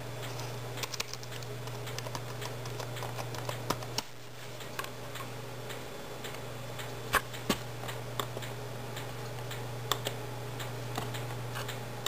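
Scattered clicks of keys and buttons on an HP Compaq nx9010 laptop, a few of them sharper, over a steady low hum.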